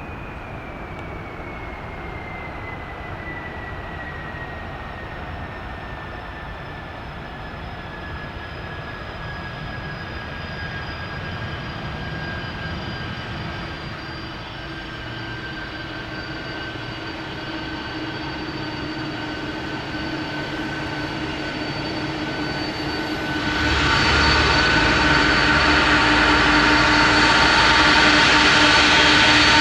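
Boeing 747-400F freighter's four jet engines on landing approach: a whine with a slowly falling tone over a steady rush that grows gradually louder, then jumps in loudness about 24 seconds in as the jet comes close.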